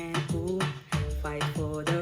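Music: a song with a sung vocal line over a steady beat and bass.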